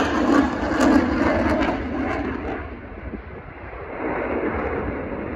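Jet noise from an RAF Eurofighter Typhoon's twin EJ200 turbofans as it flies overhead: a loud rumble with crackling in the first two seconds. It fades about three seconds in, then returns duller and steadier.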